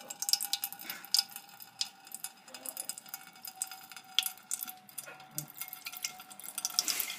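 Thin stream of water poured from a styrofoam cup, splashing into the bottom of an aluminium pressure cooker pot. It stops at the very end.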